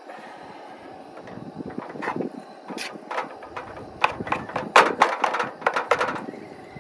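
A cooking utensil clicking and scraping against a pan in quick irregular strokes, busiest and loudest from about four seconds in, over a steady low background noise.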